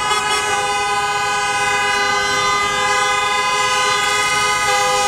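Several car horns held down at once, their different pitches blending into one long unbroken blare, from a queue of cars stopped in traffic.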